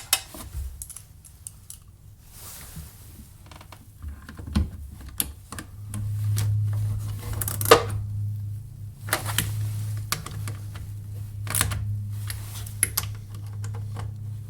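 Irregular clicks and clacks of plastic and metal parts being handled as a new heater blower motor is fitted into a Jeep Wrangler TJ's blower housing. A steady low hum sets in about halfway through.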